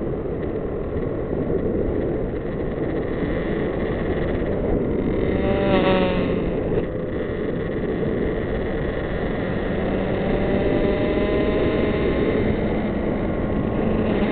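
Kawasaki Z900 four-cylinder motorcycle engine under way on the road, heard under heavy wind rush on the microphone. The engine note drops about five to six seconds in, then climbs again as the bike pulls on.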